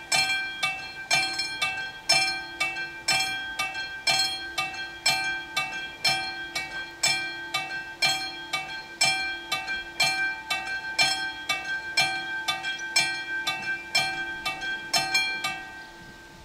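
Level-crossing warning bell ringing, about two strikes a second, while the red lights flash and the barriers lower to warn of an approaching train; the ringing stops about a second before the end, once the barriers are down.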